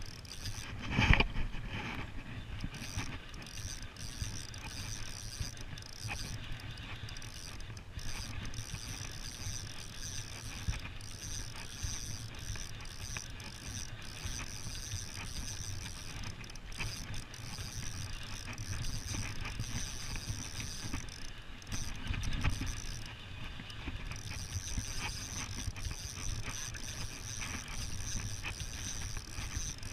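Spinning reel being cranked to retrieve line, its gears whirring and clicking steadily, with one louder thump about a second in.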